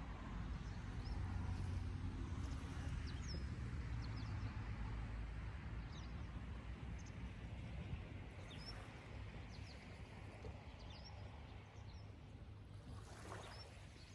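Low rumble of a passing boat's engine over the wash of water. The rumble is strongest in the first half and slowly fades, while small birds chirp briefly now and then.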